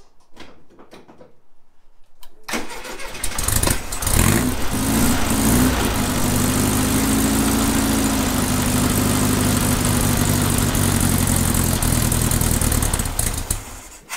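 Volkswagen Beetle's air-cooled flat-four engine cranking over for about a second and a half, catching and revving briefly, then idling steadily before being shut off near the end. It is a test run after the high-pressure oil pump and external oil filter were fitted.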